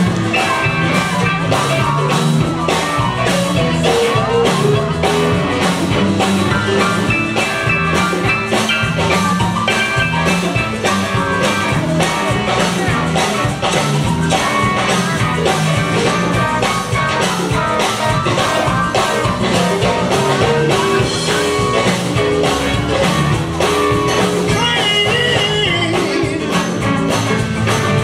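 Live band playing, with drums keeping a steady beat.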